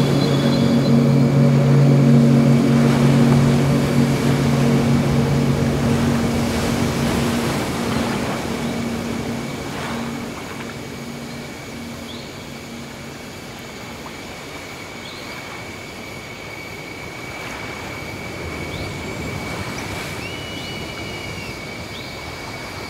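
Ambient ocean soundscape: waves washing in a soft, even rush that slowly swells and ebbs. A low sustained drone fades away over the first several seconds, and a few faint short rising chirps come in the second half.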